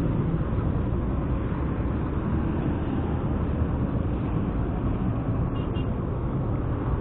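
Steady, even road and wind noise of a motorcycle on the move, with no distinct engine note standing out.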